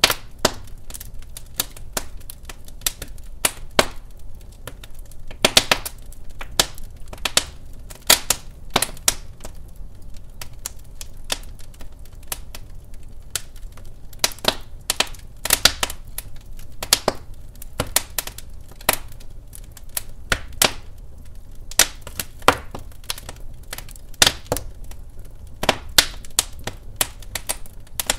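Wood fire crackling in a fireplace: irregular sharp pops and snaps, several a second, over a low steady rumble of the burning logs.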